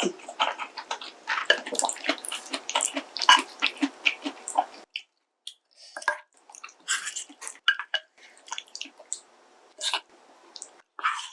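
Close-miked eating sounds: wet chewing, smacking and mouth clicks, dense for about the first five seconds, then stopping abruptly and coming back as scattered smacks and clicks.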